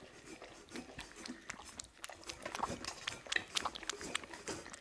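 Kittens lapping milk from a bowl: a rapid, irregular run of small wet clicks.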